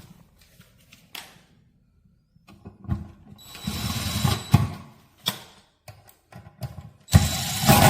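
Parts of an industrial fan being assembled: scattered clicks and knocks, with two short bursts of rapid mechanical rattling, about a second each, near the middle and at the end.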